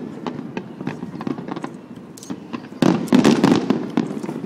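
Aerial fireworks display: a running series of bangs and crackles over a low rumble, with a dense, louder cluster of bursts about three seconds in.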